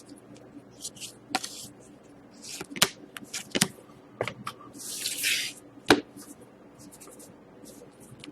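Trading cards being handled on a table: scattered brief rustles and slides of card stock, a longer sliding hiss about five seconds in, and a few sharp clicks.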